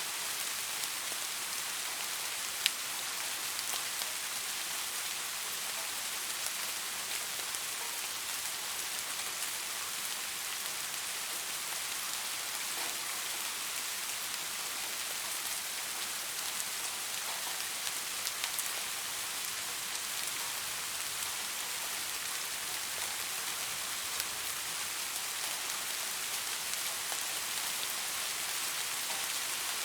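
Steady rain falling on leaves, an even hiss with the occasional sharper drop tick.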